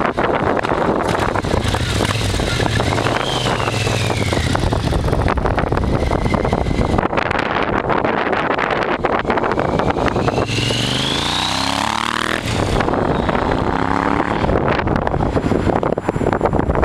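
2006 Triumph Scrambler's 865 cc parallel twin running through Norman Hyde TOGA pipes as the bike rides off and around. Its pitch rises twice as it accelerates, once about three seconds in and again, longer, past the ten-second mark. Wind buffets the microphone throughout.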